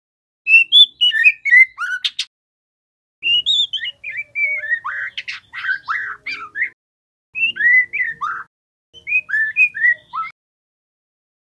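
White-rumped shama singing: four short bursts of quick, sliding whistled notes with silent pauses between, and a few sharp clicking notes mixed in.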